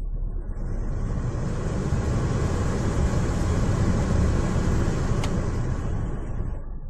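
A vehicle driving past: its road and tyre noise swells over a few seconds and then fades away.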